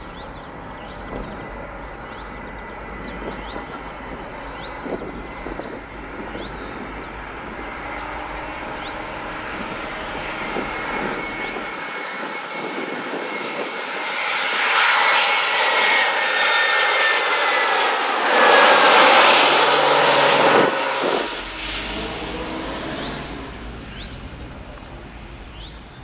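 A twin-engine jet airliner on final approach passing low overhead. The engine noise builds steadily and is loudest a little past the middle, with a whine sliding down in pitch, then drops away sharply.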